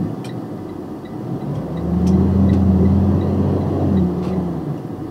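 A vehicle's steady, low-pitched drone swells in about two seconds in, holds level for about three seconds and fades away.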